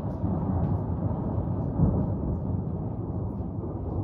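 Thunder rumbling in a long low roll that swells briefly about two seconds in.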